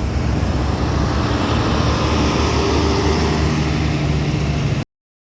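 Road traffic: a vehicle engine running close by over steady tyre and road noise, which cuts off abruptly to silence near the end.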